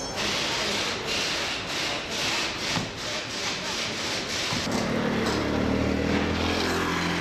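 Workshop street noise: repeated rasping strokes, about two a second, with a low steady hum coming in about five seconds in.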